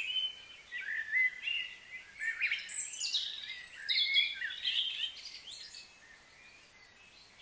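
Songbirds singing and chirping: a quick run of short whistled notes and sliding calls, busiest around the middle, thinning out near the end, over faint outdoor background noise.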